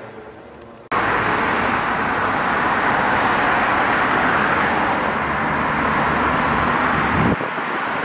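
Steady road-traffic noise of cars driving along a multi-lane city road. It starts suddenly about a second in, after quieter room tone, and drops slightly just before the end.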